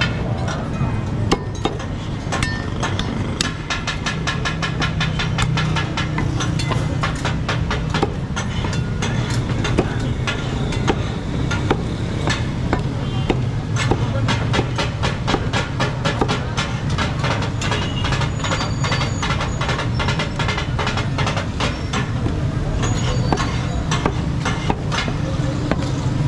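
Butcher's cleaver chopping mutton on a round wooden chopping block: many quick, sharp chops one after another, over a steady low rumble.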